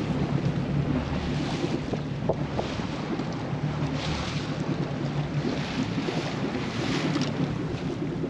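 Wind buffeting the microphone and choppy lake water splashing against the hull of a small motorboat, with a steady low hum underneath.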